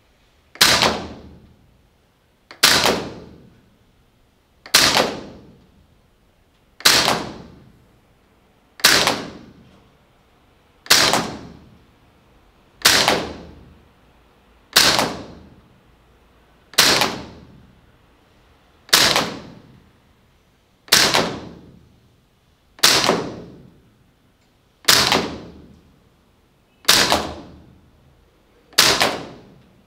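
APFG MPX gas blowback airsoft rifle (GBBR) firing slow, aimed single shots, one about every two seconds. Each shot is a sharp crack with a short echoing tail.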